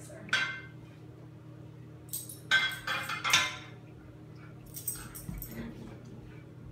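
A golden retriever and a golden retriever puppy playing tug of war over a rope toy, with a few short bursts of play growling and yipping. The loudest bursts come about two to three and a half seconds in.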